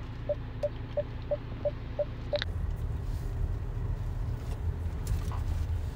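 A Hyundai car's parking sensor beeping: short even beeps at one pitch, about three a second, stopping about two and a half seconds in. After that a low steady rumble is heard inside the car's cabin.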